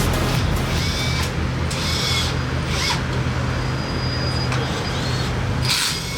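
Fiat Egea 1.4 T-Jet rally car's turbocharged four-cylinder engine idling steadily, with a few short high chirps and knocks over it.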